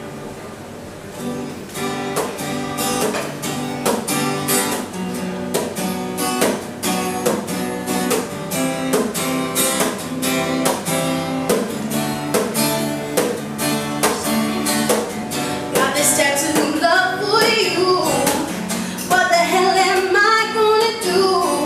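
Acoustic guitar strumming a song's introduction in a steady rhythm, fuller from about two seconds in. A woman's singing voice comes in over it about three-quarters of the way through.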